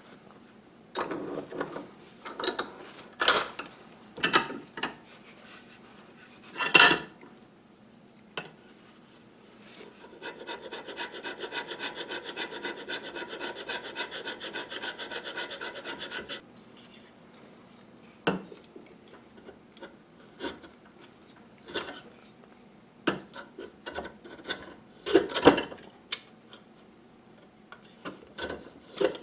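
Hand-tool work on an old brace drill held in a bench vise: scattered knocks and scrapes of metal against the parts, with a stretch of fast, even scraping strokes in the middle lasting about six seconds.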